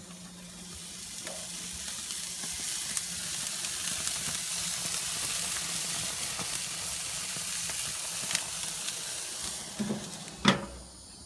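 Sausages sizzling on the grates of a Weber gas grill, a steady hiss that swells as the lid is lifted. Near the end comes a sharp knock as the metal lid is lowered.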